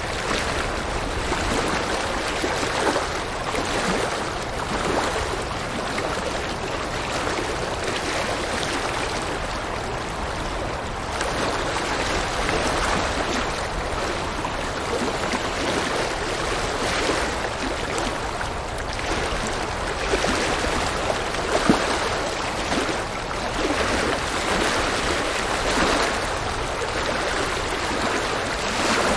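River water rushing and splashing over rocks, a continuous dense wash of sound that swells and eases gently.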